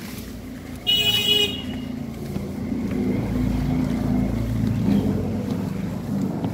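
A vehicle horn toots once, briefly, about a second in. A low, continuous rumble of a motor vehicle follows, swelling toward the middle.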